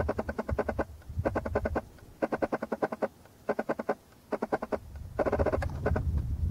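An animal's rapid rattling call, repeated in short bursts about once a second, over wind rumbling on the microphone.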